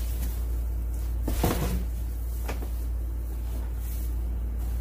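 Plastic-wrapped Kuppet twin-tub washer being lifted out of its cardboard box and set down: cardboard and plastic handling noise, with a short scraping knock about a second and a half in and a lighter tap about a second later. A steady low hum runs underneath.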